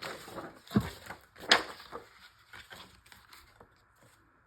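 Pieces of paper and card being handled and laid on a work surface: soft rustling with two sharper taps, about a second in and a second and a half in, then fading to faint small ticks.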